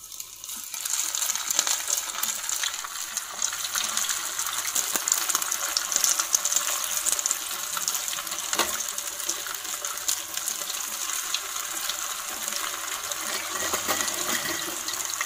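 Bread samosas deep-frying in oil on a medium flame: a steady bubbling sizzle with fine crackling. It swells about a second in as the samosas go into the oil.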